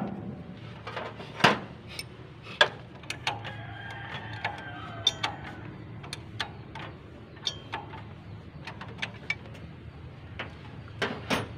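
Irregular metallic clicks and knocks of a wrench and fasteners as an alternator is bolted back onto the engine, a few louder knocks about a second and a half and two and a half seconds in and a cluster near the end.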